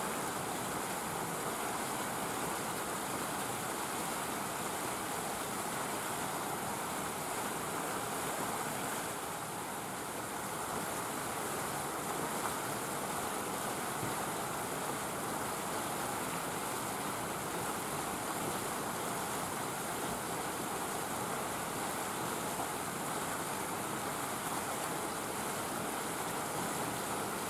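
Steady, even rushing noise with no distinct events and no change in level.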